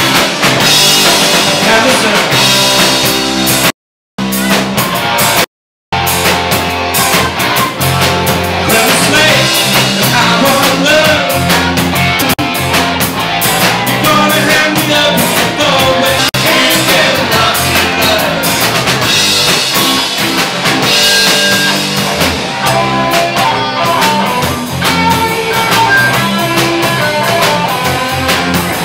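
A live rock band playing a cover: a man sings into a microphone over guitar and drum kit. The sound cuts out completely twice, briefly, in the first six seconds.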